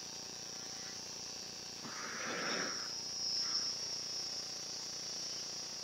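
Motorised arthroscopic burr running with a steady high-pitched whine while it shaves bone off the acromion. A brief soft rushing noise comes about two seconds in.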